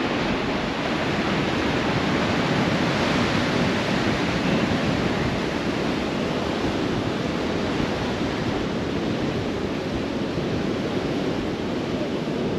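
Steady rushing noise of wind on the microphone mixed with surf on the beach, with no distinct breaks or single wave crashes.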